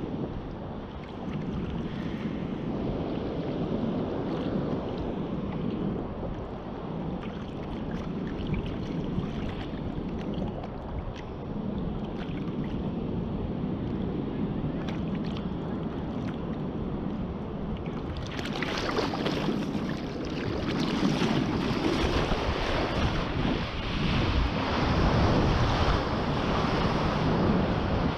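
Ocean surf washing onto a beach, with wind buffeting the microphone. About two-thirds of the way through the sound becomes louder and brighter.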